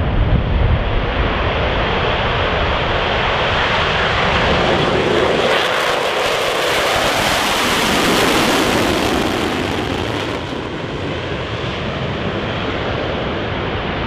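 A fixed-wing aircraft's engine noise passing overhead: a loud rush that swells and brightens toward the middle, then fades away.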